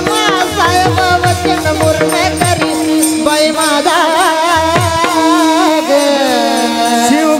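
Warkari devotional singing: a male voice sings a long, winding melodic line over a steady held drone note, with small brass hand cymbals (taal) keeping time. Mridang drum strokes with falling bass tones accompany the first five seconds or so, then the drum drops out while the singing carries on.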